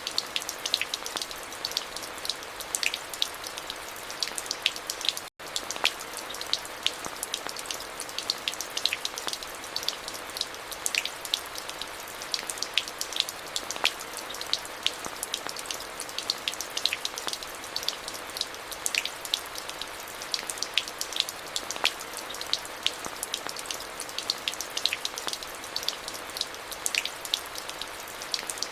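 Steady rain: an even hiss with many individual drops ticking sharply on hard surfaces close by. The sound cuts out for an instant about five seconds in.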